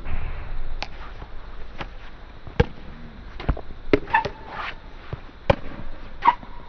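Pickleball rally: paddles striking the hard plastic ball, about nine sharp pops at irregular spacing, closer together around the middle, mixed with the ball bouncing on the court. A short rush of noise comes right at the start.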